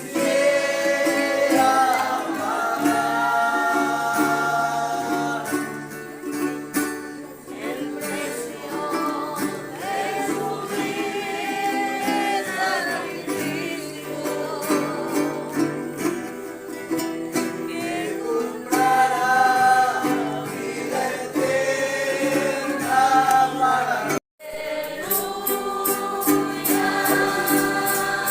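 Congregation singing a hymn together with guitar accompaniment. The sound cuts out for a moment about three-quarters of the way through, then the singing goes on.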